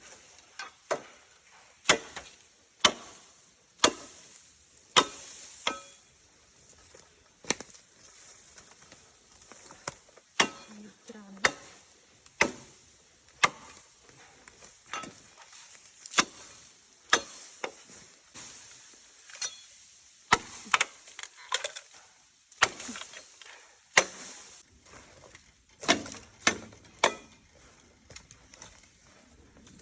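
Bamboo being chopped with a blade: sharp woody strikes about once a second, with a few longer pauses between them.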